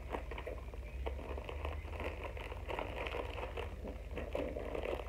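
Clear plastic packaging crinkling and rustling as it is handled, in many small irregular crackles, over a low steady hum.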